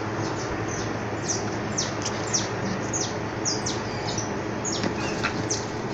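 Small birds chirping over and over, each chirp a quick high note sliding downward, about two a second.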